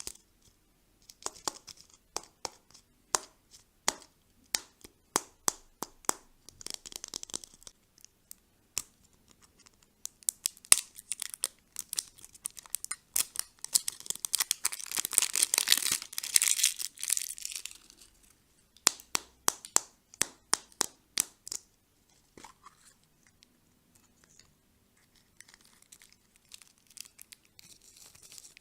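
Candy packaging being handled and torn open close up: sharp crinkling crackles, with a longer, louder stretch of tearing about halfway through, then quieter handling near the end.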